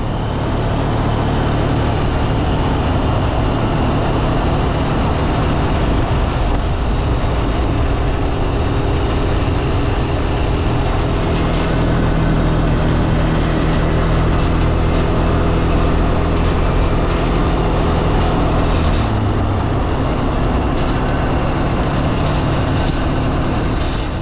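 Quad (ATV) engine running steadily while being ridden.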